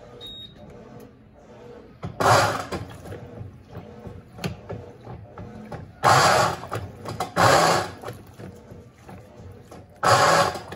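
Electrolux Turbo Compacta top-loading washing machine agitating its wash: a low motor hum broken by four loud swishing surges of water, each lasting about half a second to a second, as the agitator turns.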